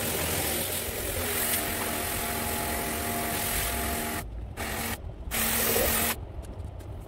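Pressure washer running and spraying: a steady motor hum under a strong hiss of water. About four seconds in, it cuts off and back on twice in quick succession, then stops, leaving a low rumble.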